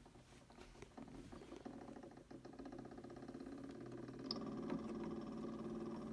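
Wind-up Victrola phonograph running with the record spinning: a faint steady whir that grows louder. About four seconds in there is a sharp click as the soundbox needle is set onto the record, and the hum is louder after it.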